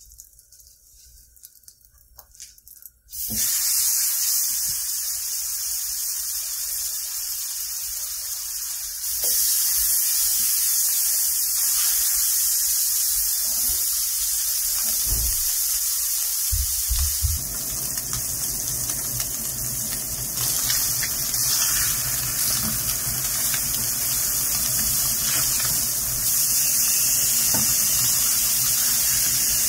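Seasoned fish fillets sizzling in hot olive oil and butter in a nonstick skillet, a steady hiss that starts abruptly about three seconds in and gets louder at about nine seconds.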